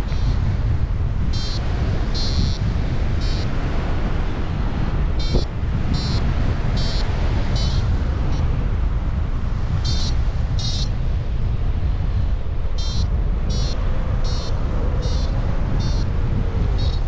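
Airflow rushing over the microphone in paraglider flight, loud and steady. Over it, a variometer gives short high beeps in irregular runs, the sign of the glider climbing in rising air. There is a single brief tap about five seconds in.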